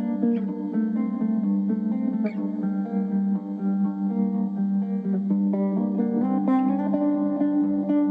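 Guitar music: plucked notes changing over steady held lower notes.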